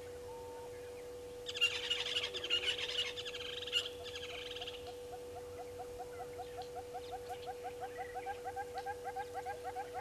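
Brown-headed parrots giving a harsh, rapid screeching burst for about three seconds, starting about a second and a half in. Under it runs a steady hum, and from about halfway a regular run of short chirps, about three a second.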